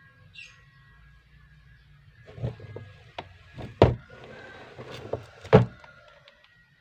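A series of knocks and clatters, about half a dozen, with two sharp knocks the loudest, over a faint steady hum.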